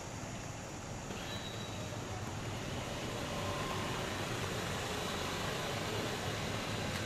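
Steady outdoor city background noise: a low rumble and hiss with no distinct events, growing slightly louder toward the end.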